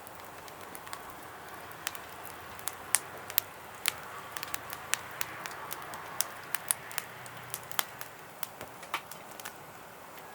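Wood pellets burning in a secondary-combustion fire pit: a steady hiss of flame with sharp, irregular crackles and pops, two or three a second.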